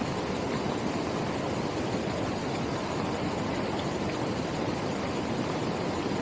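Steady rushing of a mountain valley stream, an even noise that holds constant throughout.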